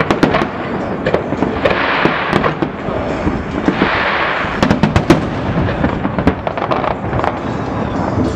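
Aerial fireworks shells bursting, with a rapid, irregular run of sharp bangs and crackling throughout.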